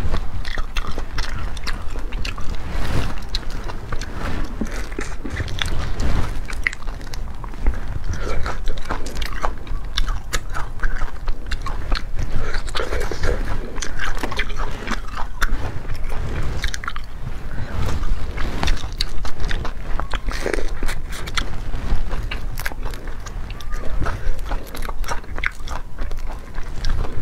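Cooked mantis shrimp shells cracking and crackling as they are peeled apart by hand, a dense run of small sharp clicks, with chewing sounds.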